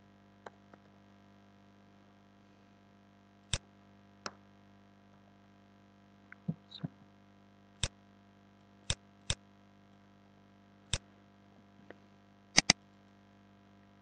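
Scattered sharp clicks of a computer keyboard and mouse as code is typed and edited, a dozen or so at uneven spacing with a quick double click near the end, over a steady low mains hum.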